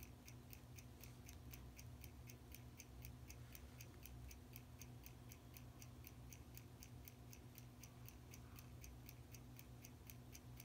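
Faint, rapid, even ticking of a running timepiece, several ticks a second, over a faint steady hum.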